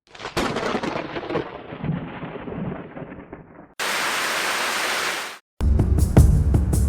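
A thunderclap that rumbles and fades away over about three seconds, followed by a second and a half of flat static hiss that cuts off abruptly. Music with a steady beat starts near the end.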